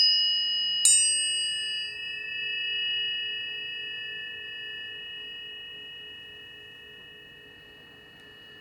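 Planetary tuning forks struck, once at the start and again about a second in, then ringing with steady high tones that slowly fade.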